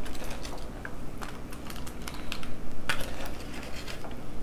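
Chopped red onion scattered by hand onto crisp tortilla chips: irregular light ticks and patters as the pieces land on the chips, with a louder clatter about three seconds in.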